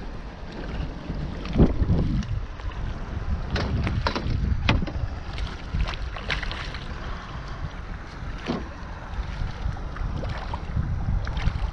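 Wind rumbling on the microphone, with scattered sharp splashes and knocks as a hooked redfish thrashes at the surface beside a small boat and a landing net is dipped at it.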